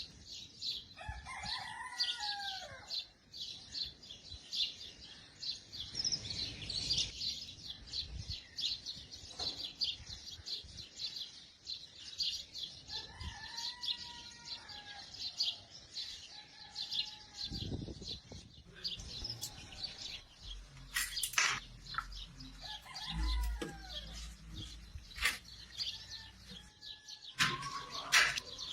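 Birds calling outdoors: constant high chirping, with three longer calls that fall in pitch, and a few sharp knocks near the end.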